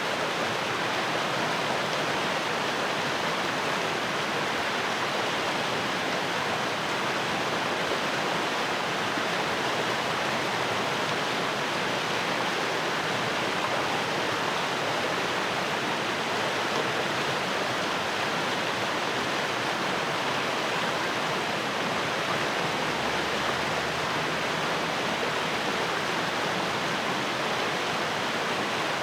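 Fast-flowing stream rushing steadily over rocks, a continuous even rush of water.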